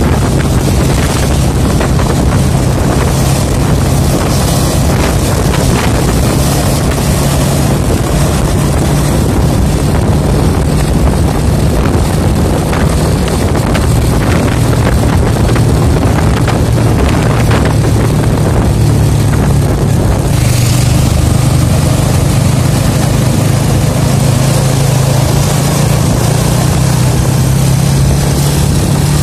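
A vehicle engine running steadily while driving, a low drone mixed with wind and tyre noise; the engine note edges up slightly near the end.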